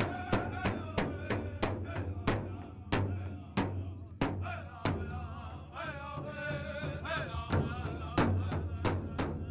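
Powwow drum group: a big drum beaten in a steady pulse, about three beats a second, then slower, with high wavering voices singing over it. A quick run of hard beats comes near the end.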